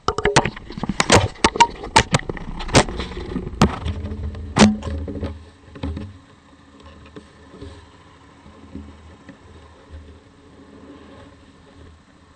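A run of sharp clicks and knocks from the camera being handled and clicked into its mount, loudest in the first five seconds. After that a Yamaha Grizzly 550 ATV's single-cylinder four-stroke engine idles low and steady underneath.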